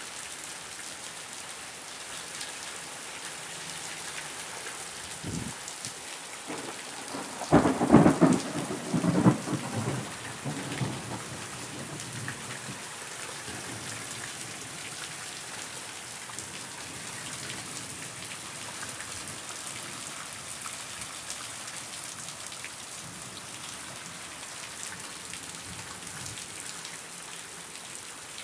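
Heavy rain falling steadily on grass and pavement during a thunderstorm. About seven and a half seconds in, a close thunderclap cracks and rumbles for about three seconds before dying away under the rain.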